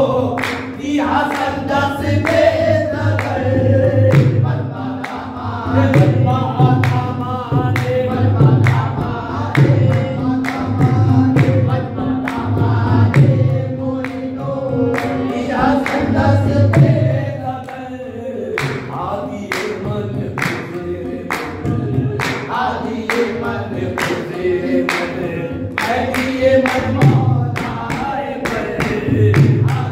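Qawwali: several men singing together with rhythmic handclaps, over a harmonium.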